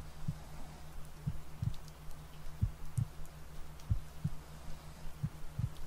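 Recorded heartbeat sound, slow double thumps (lub-dub) about every 1.3 seconds, five in all. Underneath is a steady low hum from a theta-wave tone track and a faint rain-like hiss.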